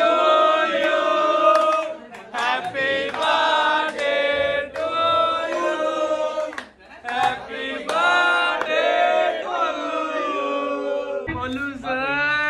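Several men singing together in long held notes.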